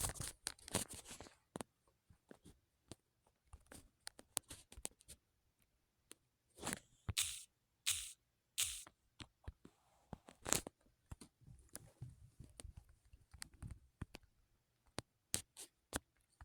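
Irregular clicks and taps, with a few short rustling scrapes in between.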